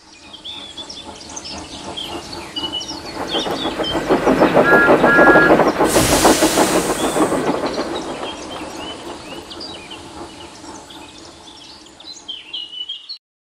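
A steam train passing: a rhythmic clatter of wheels on the rails grows louder, peaks about five seconds in with two short whistle toots and a burst of steam hiss, then fades away, with high chirping throughout. It cuts off suddenly near the end.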